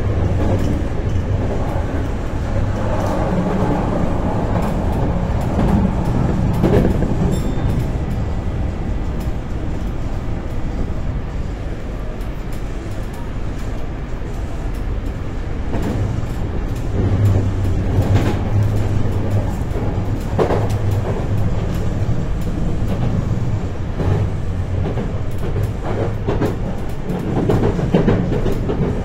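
Kobe Municipal Subway train running at speed, heard from inside the passenger car: a steady rumble with a low hum and many scattered clicks and knocks from the running gear.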